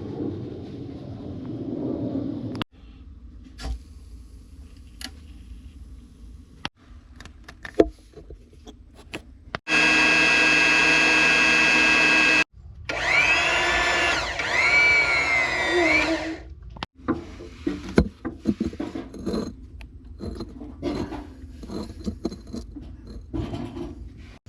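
Foundation-repair work sounds in short separate stretches. A power tool runs at a steady pitch for about three seconds near the middle, then one whose pitch dips and rises, with knocks and clatter of tools and materials between.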